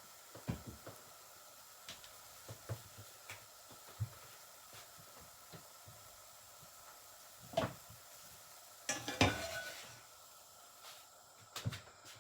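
Kitchen utensils clinking and knocking against dishes: scattered light clicks, a louder clatter a little past halfway, and the loudest ringing clatter about three quarters of the way in.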